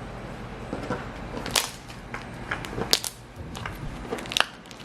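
Stretchy slime being worked in the hands, making loud crunches: a string of sharp crackling pops, with the three loudest about a second and a half apart.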